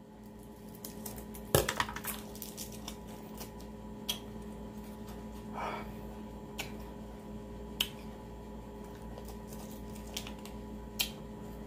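Scissors snip through a freeze pop's plastic sleeve about a second and a half in. Then scattered small clicks and crinkles of the plastic tube as the frozen pop is bitten and sucked.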